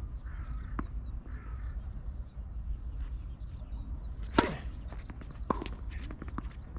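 Tennis ball struck by a racket: one sharp, loud pop a little past halfway and a fainter one about a second later, with quick light ticks in between and a steady low rumble underneath.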